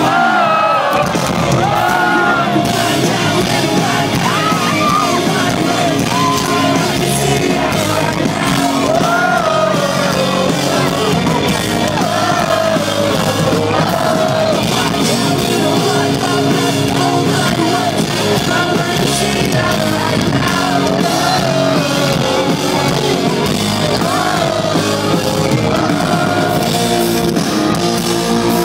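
Live rock band playing loudly: a male lead vocal singing over electric guitars and drums.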